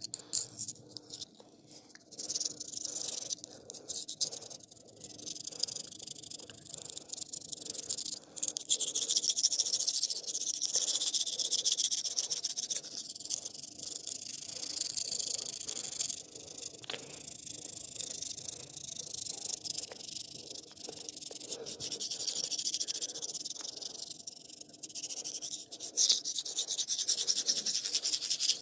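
Fast, continuous rubbing and scratching of a barber's massage on skin and hair, a hiss-like sound that swells and fades in long stretches, with short lulls about two, eight, sixteen and twenty-four seconds in.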